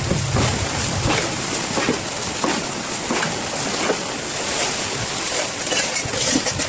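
Heavy rain falling steadily, with many sharp, irregular drop impacts close by. A gust of wind rumbles on the microphone during the first second.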